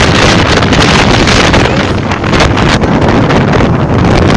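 Tornado-force wind blasting across the microphone: a loud, continuous rush that swells and dips in gusts.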